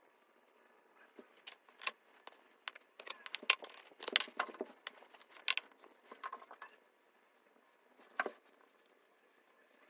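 Handling noise: irregular sharp clicks and light taps, busiest around the middle, with one louder click near the end.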